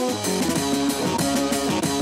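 Background music with guitar and drums, a steady beat.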